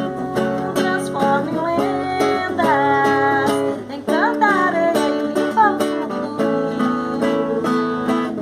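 A woman singing over a guitar strummed in a steady rhythm, her voice gliding between notes.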